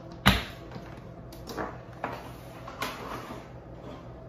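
Plastic knocks from a food processor's bowl and blade assembly being handled: one sharp clunk about a quarter second in, then a few softer knocks as the blade is worked out of the bowl.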